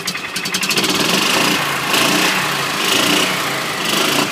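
Club Car Pioneer 1200's 400 cc Kawasaki gas engine being revved up from idle. It climbs about a second in and is held high with surges about once a second, then drops back sharply at the end.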